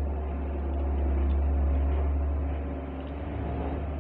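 A steady low droning hum, swelling slightly about a second in and easing off a little near the end.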